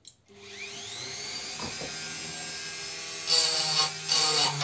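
Handheld rotary tool switched on, its motor spinning up in a rising whine and then running steadily at high speed. About three seconds in, the spinning disc is pressed twice briefly against the plastic battery case, each time with a louder grinding rasp.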